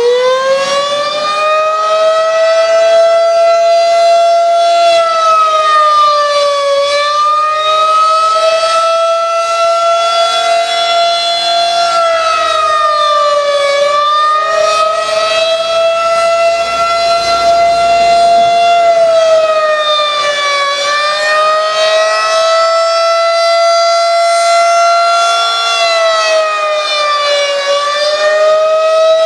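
Federal Signal 2001-SRN civil-defense siren sounding the attack signal at full speed: a loud, steady high tone with a brief dip in pitch about every seven seconds.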